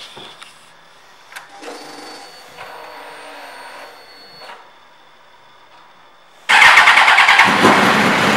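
2002 Suzuki GSX-R1000 switched on: a steady electric hum of the fuel pump priming for about three seconds. About six and a half seconds in the starter cranks and the inline-four engine catches within a second and runs loudly.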